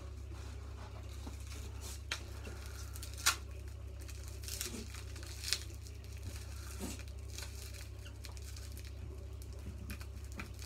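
Hands unwrapping a small item from its packaging: light rustling and tearing, with a few sharp clicks, the loudest about three seconds in, over a steady low hum.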